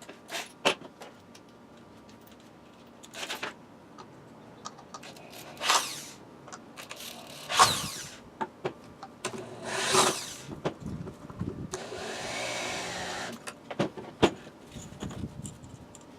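Handheld power drill run in several short spurts and one longer run, the motor spinning up and down, with clicks and knocks of small metal parts being handled between the spurts.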